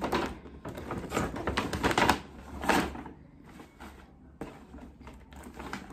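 Paper gift bag rustling and crinkling as it is handled and rummaged through, loudest in the first three seconds and then sparser.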